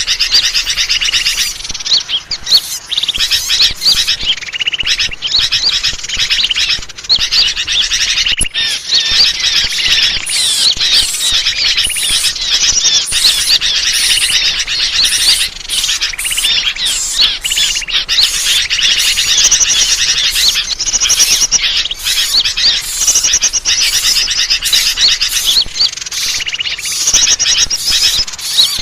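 Dense chorus of many small songbirds chirping and twittering over one another without a break, a bird-lure (pikat) call recording.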